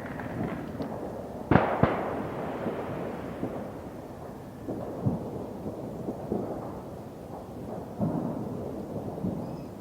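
Fireworks and firecrackers going off: two sharp bangs about a second and a half in, then scattered smaller bangs over continuous low rumbling.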